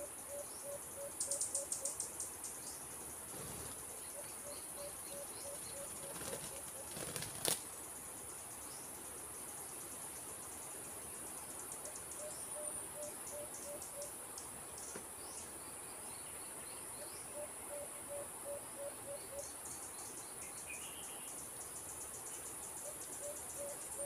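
Alimukon dove calling: runs of six to eight soft low hoots, about four a second, repeated every few seconds, over a steady high drone of insects. A few short high chirp trains, and a single sharp click about seven and a half seconds in.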